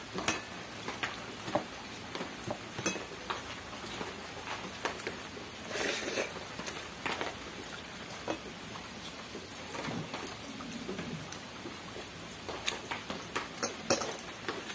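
Eating rice by hand from steel dishes: soft squelchy mixing of rice with curry and scattered light clicks and taps against the steel plate and bowls, with a cluster of taps near the end.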